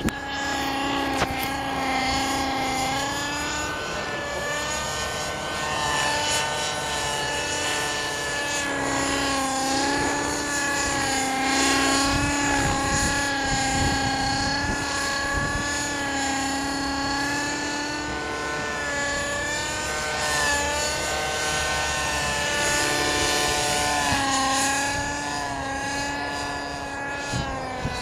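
Radio-controlled model helicopter flying, its small engine running with a steady buzzing note that rises and falls in pitch as it manoeuvres. Wind rumbles on the microphone.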